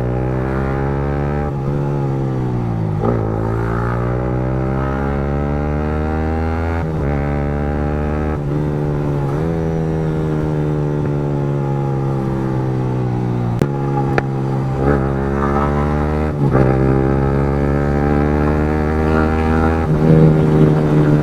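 Yamaha MT-15's single-cylinder engine through an Akrapovic long-can aftermarket exhaust, revving up and dropping back repeatedly through the gears while being ridden. About two-thirds of the way through, two sharp pops come from the exhaust as the revs drop.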